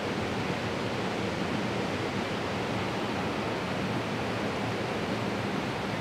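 Steady rush of a small waterfall cascading over boulders into a pool.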